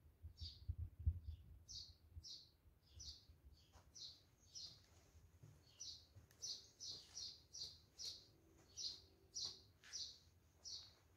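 A small bird chirping over and over, short high chirps about two a second, faint. A few soft low thumps in the first two seconds.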